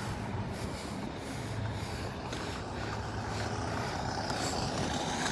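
Road traffic: a motor vehicle's engine running steadily with a low hum, growing slightly louder over the last couple of seconds.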